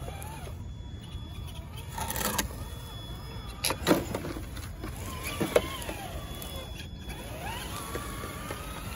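Traxxas TRX-6 6x6 RC crawler's electric motor and gearbox whining, the pitch rising and falling with the throttle as it crawls. There are a few sharp knocks, the loudest about four seconds in.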